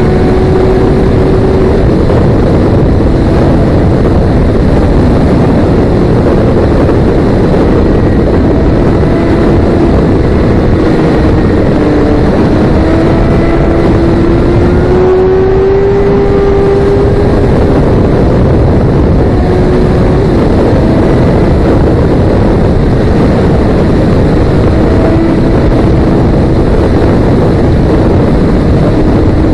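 Sport motorcycle riding at speed, with heavy wind rush on the microphone over the engine's steady note, which rises and falls slightly with the throttle.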